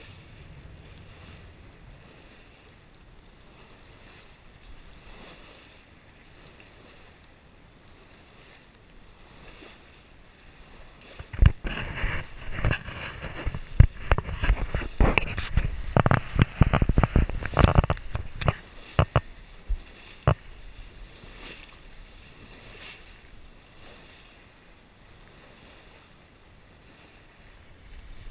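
Sailboat under way: a soft, steady rush of water along the hull and wind. Through the middle third comes a loud, choppy stretch of splashing and wind buffeting the microphone.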